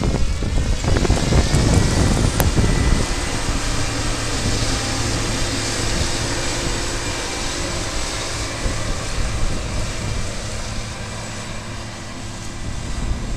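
Claas Lexion 450 combine harvester running while harvesting, its engine and threshing machinery giving a steady hum and rush that slowly fades as it moves away.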